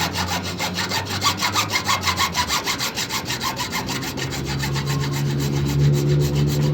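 Hand saw cutting through PVC pipe, with rapid, even back-and-forth strokes, several a second.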